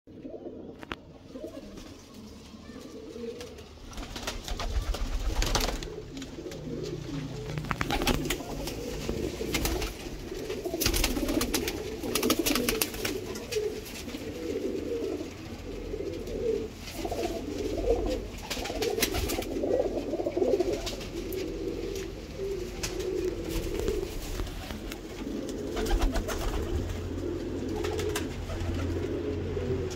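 Flock of domestic pigeons cooing continuously, many birds overlapping in a low, rolling warble, with occasional sharp clicks.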